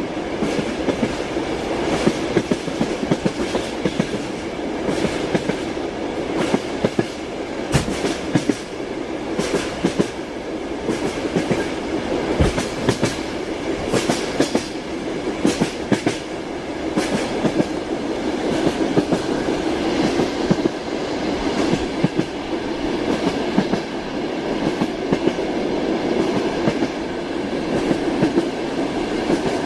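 Train running on the rails: a steady rumble with the clickety-clack of the wheels and many sharp clicks and knocks scattered throughout.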